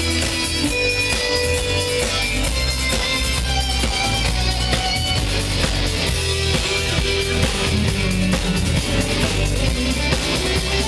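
Live rock band playing an instrumental passage between sung lines: strummed electric guitar over bass and a steady drum-kit beat, with no vocals.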